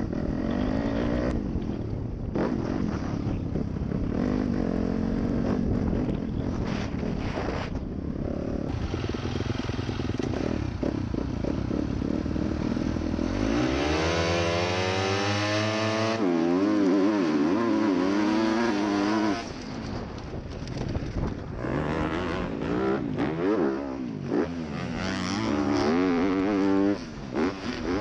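Dirt bike engine running low and steady, then about halfway through it launches from the starting gate, the revs climbing steeply and stepping up through gear changes. After that the revs rise and fall as the throttle goes on and off around the track.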